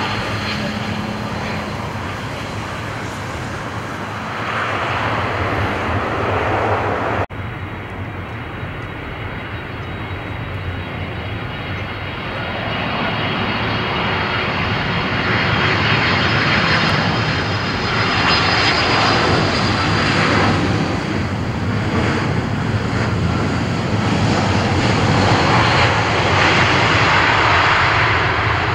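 Jet engines of Boeing 767 airliners landing: one aircraft's engine noise cuts off abruptly about seven seconds in, then a second 767's engines grow steadily louder as it comes in and touches down near the end.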